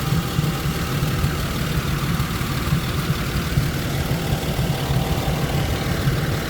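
1999 Isuzu VehiCROSS's 3.5-litre V6 idling steadily with no knock, after a loose timing belt running 1–2 teeth off and a collapsed tensioner were replaced along with the idler, pulley and water pump.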